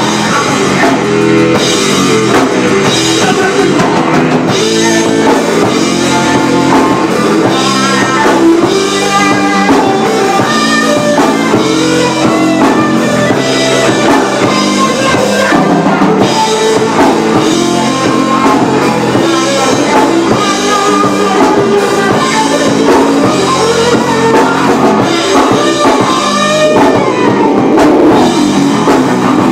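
Rock band playing live, loud and dense: drum kit and guitars.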